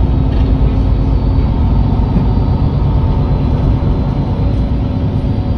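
MAN NL323 Lion's City city bus's diesel engine idling at a standstill, a steady low rumble.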